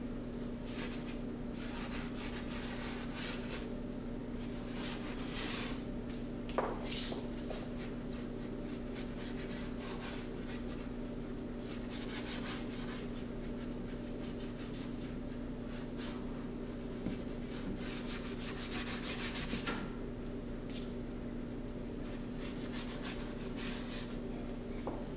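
Metal palette knives scraping and spreading thick paint across cardboard in short, irregular strokes, with a quick run of strokes about three quarters of the way through, over a steady low hum.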